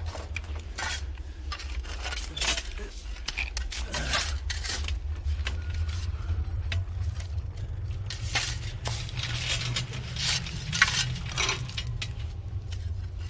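Irregular metallic clinks, rattles and scrapes over a steady low hum.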